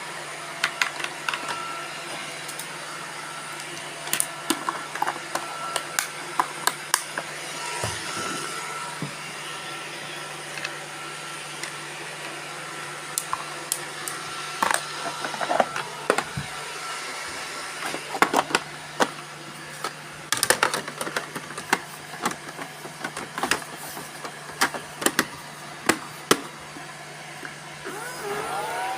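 Several robot vacuum cleaners running together, a steady motor and brush hum, with frequent sharp clicks and knocks throughout.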